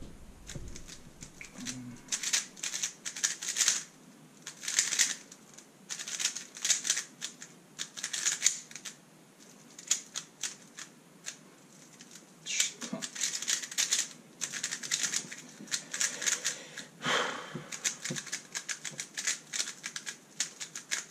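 A Thunderclap v3 M magnetic 3x3 speedcube being turned fast: flurries of rapid plastic clicking and clacking, broken by short pauses and a longer pause about halfway through.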